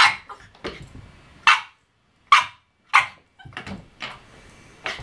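Norfolk terrier puppy barking at its own reflection in a mirror: about five short, sharp, high barks, irregularly spaced, with quieter rustling between them.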